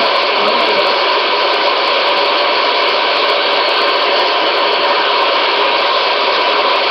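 White noise playing: a loud, steady hiss that holds unchanged throughout.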